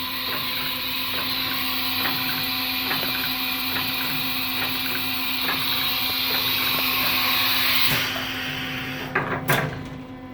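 Milltronics VM24 CNC machining center running a tool change: a steady hiss with faint ticking about twice a second, which cuts off after about eight seconds. Two sharp clunks follow about a second later.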